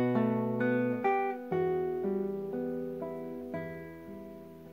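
Solo classical guitar, fingerpicked: single plucked melody notes over held bass notes, at first about two a second, then further apart, the playing growing steadily quieter.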